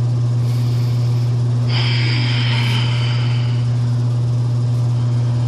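A loud, steady low hum with no break, joined about two seconds in by a fainter high ringing tone that fades out a couple of seconds later.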